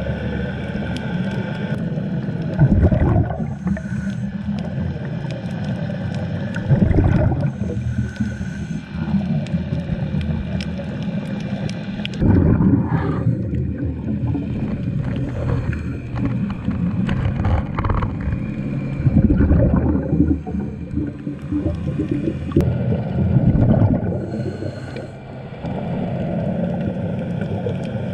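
Underwater sound of a scuba diver breathing through a regulator: a short hiss on each inhale, then a rush of exhaled bubbles every four seconds or so, over a steady low hum in the water.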